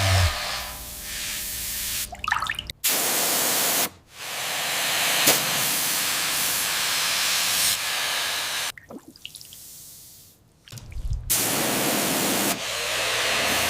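Steady hissing spray in several long bursts, each cutting off abruptly with short gaps between, the longest gap about two seconds long in the second half.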